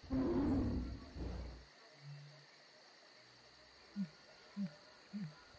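Outro sound effects of night-time jungle ambience: insects chirring steadily. A loud, low, rumbling burst opens it and fades out within about two seconds. From about four seconds in come short low calls that rise and fall, repeating roughly every half second.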